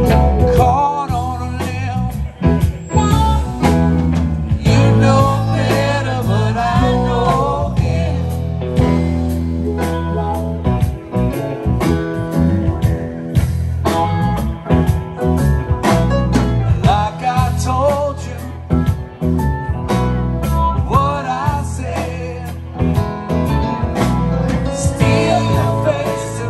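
Live band playing a song on guitars, keyboard, bass and drums, with singing over a steady beat.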